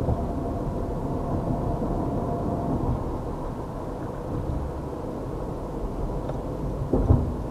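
Steady low road and engine rumble inside a moving car's cabin, picked up by the dashcam's microphone, with a single thump about seven seconds in.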